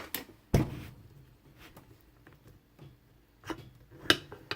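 A few sharp clicks and knocks from a just-picked padlock and its lock picks being handled: the loudest, with a dull thump, about half a second in, and two lighter clicks near the end.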